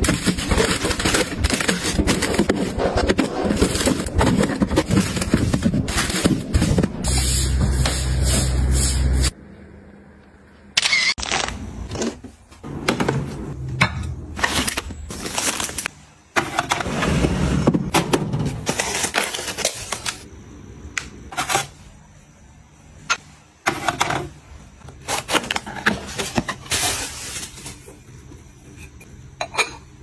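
Household handling sounds: continuous rustling and rubbing for about nine seconds, ending with a low hum for about two seconds, then a run of separate clicks and knocks of hard objects being handled and set down.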